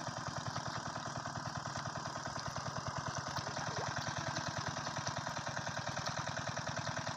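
Engine of a pond dewatering pump running steadily, with a rapid, even beat.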